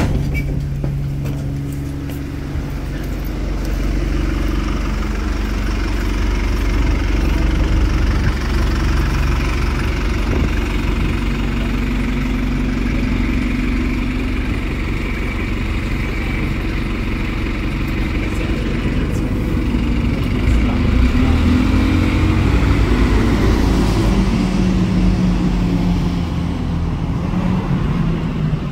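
Diesel engine of an Alexander Dennis Enviro200 single-decker bus running steadily at a stop. From about twenty seconds in, bus engine noise rises in pitch and grows louder as a bus pulls away and passes.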